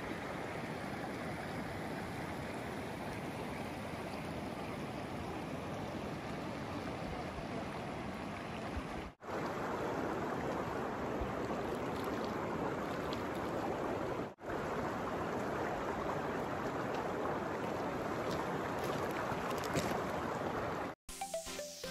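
Shallow river water flowing swiftly over gravel and stones: a steady rushing, broken twice by brief gaps.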